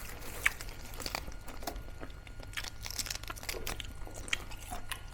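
Close-up eating sounds: irregular crisp crunches and chewing of crispy fried pork mesentery (chicharong bulaklak), several short crackles a second.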